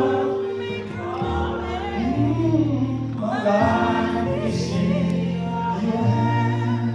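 Gospel music: a congregation singing a worship chorus with held, sustained notes over a steady bass accompaniment.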